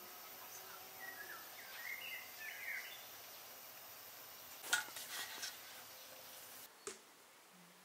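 Faint outdoor ambience with a few short bird chirps in the first few seconds. A quick run of sharp clicks and taps comes a little under five seconds in, followed by one more click about two seconds later.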